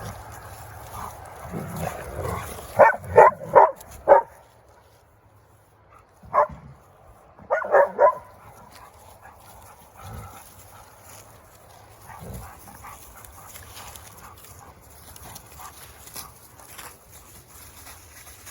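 A dog barking in short, high-pitched barks: a quick run of four, a single bark, then three more in quick succession, after which only faint background sound remains.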